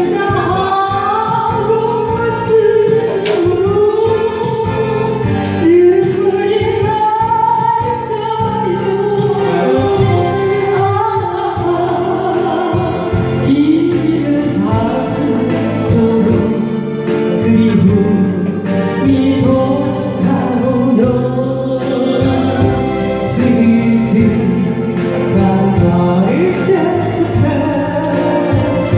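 A woman singing a Korean ballad over instrumental accompaniment, with long held, sliding notes.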